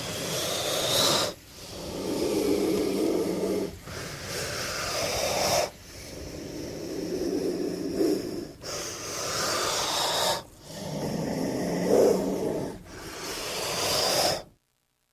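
Snake hissing over and over, about seven long hisses in a row, each one to three seconds, with a brief pause between; it stops abruptly near the end.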